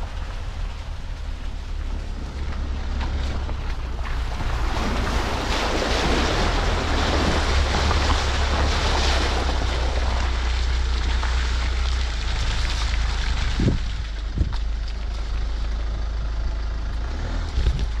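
A car driving slowly over a rutted, muddy dirt track, heard from a microphone mounted outside the car: a low rumble of wind on the microphone with the hiss of tyres through mud and puddles, which grows louder from about four seconds in. Two knocks from the wheels hitting bumps come less than a second apart, about three-quarters of the way through.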